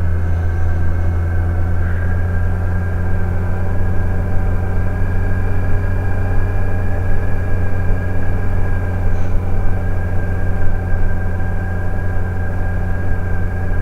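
Kawasaki Z900's inline-four engine running steadily at a constant speed, with a steady high whine over the engine note.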